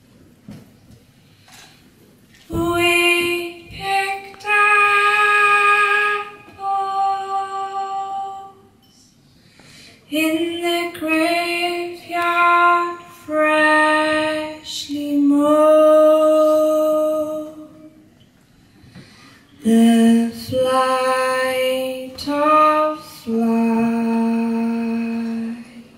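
A woman singing a slow folk melody unaccompanied, one voice with no instruments. She sings in separate phrases with short breaths between them, starting a couple of seconds in.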